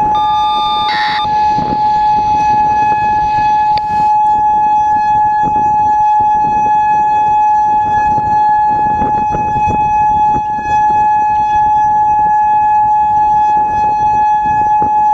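Federal Signal Modulator 6024 electronic warning siren sounding a steady, unwavering alert tone during its test. Wind buffets the microphone underneath.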